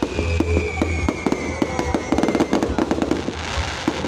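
Fireworks going off in rapid, dense crackling pops, with a whistling tone that falls slowly over the first two and a half seconds.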